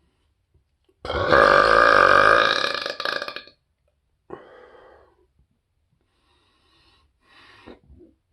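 A man's deliberate, loud burp lasting about two and a half seconds, starting about a second in, followed by a shorter, much fainter sound.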